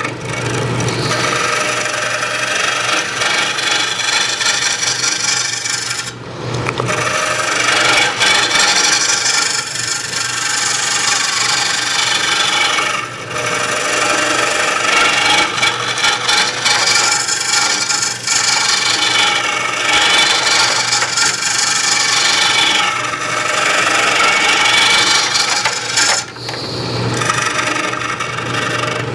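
A turning tool cutting a spinning green wood bowl on a lathe, a continuous rasping hiss over the steady hum of the lathe, easing off briefly about four times as the tool is lifted or repositioned.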